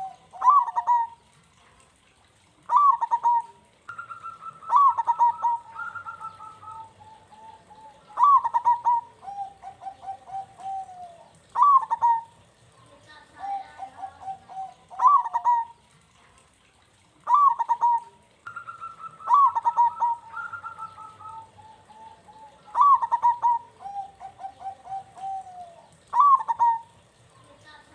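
Zebra dove (perkutut) cooing in repeated phrases: each is a sharp rising note followed by held lower coos, and the whole sequence comes round again about every 15 seconds, like a looped recording.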